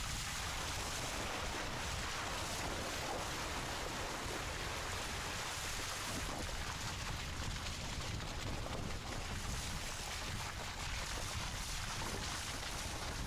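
Car tyres rolling and churning through wet mud and slush, with a steady rush of wind on a microphone mounted on the outside of the car and a low rumble underneath.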